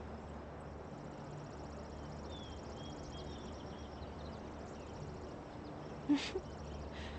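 Faint garden ambience: insects chirping in a fine steady pulse with a few short bird chirps, over a low steady hum. A brief, louder sound comes about six seconds in.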